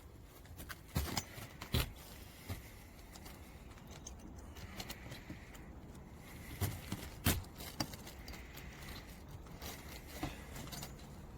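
Scattered, irregular knocks and light scrapes of a hammer and metal roof snake working a nail under asphalt shingles, about seven sharp taps spread over several seconds.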